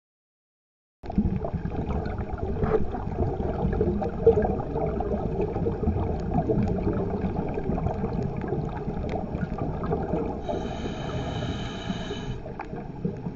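Underwater ambience: a steady low rumble and gurgle of water with scattered small clicks, starting about a second in. Near the end a high buzzing tone sounds for about two seconds.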